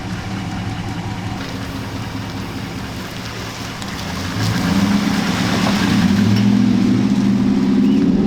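Dodge Ram's rebuilt 5.7 Hemi V8 idling steadily, running as a healthy engine should. It grows louder about four seconds in.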